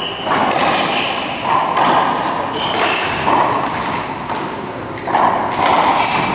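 Racquetball rally: several hard hits of the ball off racquets and the court walls, about one every second or two, each ringing out in the enclosed court.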